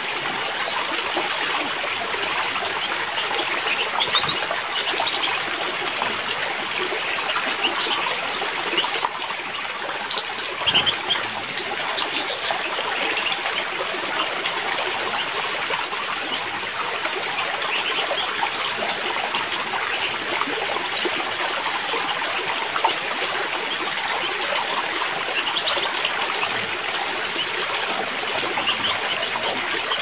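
Steady rushing and trickling of a forest stream, with a few short high chirps about ten to twelve seconds in.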